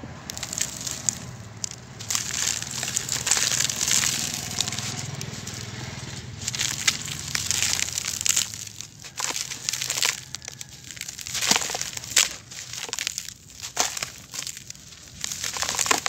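A dry, compacted lump of grey sand crumbled by hand over a red plastic sieve basket: gritty crunching and crackling as it breaks apart, with loose grains showering down onto the plastic. It is a dense, continuous rush for the first half, then breaks into separate sharper crunches.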